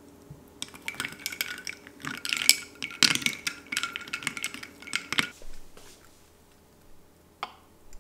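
Ice cubes clinking against a glass tumbler as iced coffee is stirred with a straw: a quick run of ringing clinks lasting about five seconds. A single light knock follows near the end.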